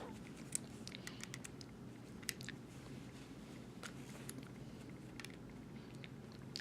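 Faint, irregular small metal clicks and ticks of an Allen key working machine screws out of a knife-sharpener vise base by hand.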